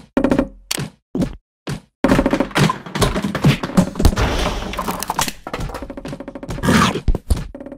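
Cartoon fight sound effects: a rapid string of thuds, whacks and knocks, with a short break about a second in before the hits start again and run on thickly.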